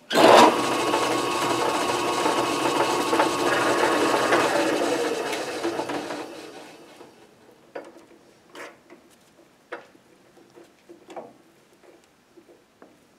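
Metal lathe switched on under power and run for about six seconds, turning the workpiece in the four-jaw chuck against a drill bit held in the tailstock chuck, then coasting to a stop. After that come a few light clicks and taps of metal being handled.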